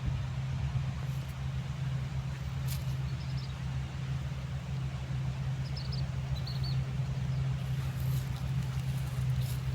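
Combine harvester's diesel engine running steadily, a low even drone, with a few short faint high chirps over it.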